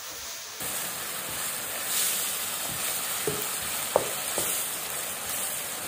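Chopped onions and ginger-garlic paste sizzling in hot oil in a frying pan while a wooden spatula stirs them, with a few short scrapes and taps of the spatula against the pan. The sizzle grows louder about half a second in.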